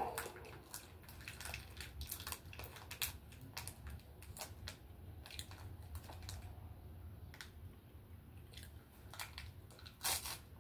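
Plastic wrapper of a small snack being picked open by hand: a scatter of faint crinkles and crackles, with a louder crackle about ten seconds in as it goes to the mouth.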